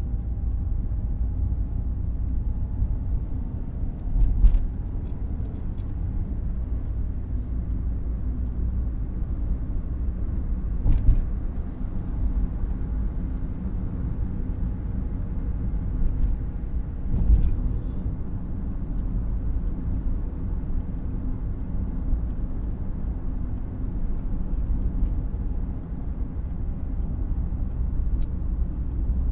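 Car cabin ambience while driving with the windows closed: a steady low rumble of engine and tyres on the road, with three brief thumps, about 4, 11 and 17 seconds in.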